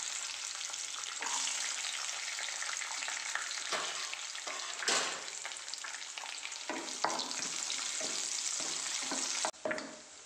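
Cashew nuts frying in ghee in a nonstick pan, a steady sizzle with the scrape and knock of a spatula stirring them now and then. The sizzle cuts off abruptly near the end.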